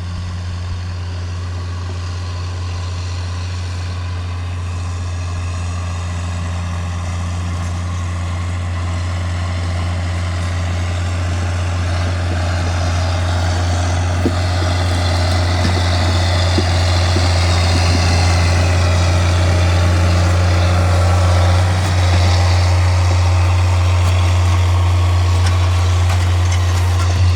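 Tractor engine running steadily with a constant low drone, gradually growing louder.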